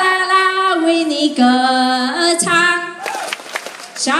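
A woman singing solo into a microphone over a PA system, unaccompanied, in long held notes that step down and back up in pitch.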